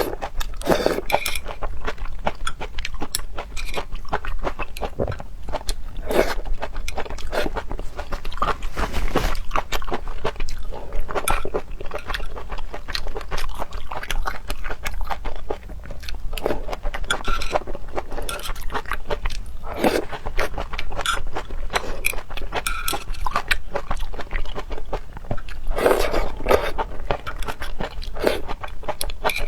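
A person chewing and biting seafood up close, a dense run of crunching clicks with louder bites every few seconds.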